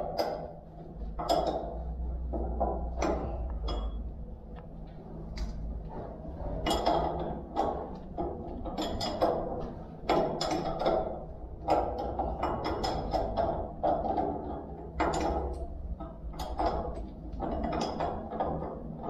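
Hand tools working on metal engine parts: irregular metallic clicks, knocks and ratcheting over a steady low hum.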